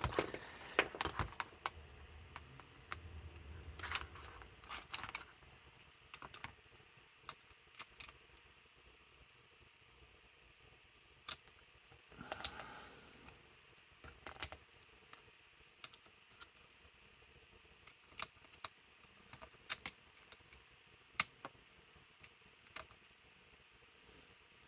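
Scattered light clicks and taps: multimeter test probes and small plastic and metal door-latch parts being handled while the small DC lock motor's resistance is measured.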